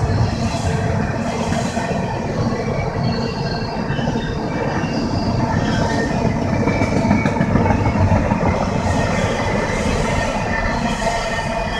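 Double-stack container well cars of a freight train rolling past: a steady rumble of steel wheels on rail, with faint high-pitched wheel squeal now and then.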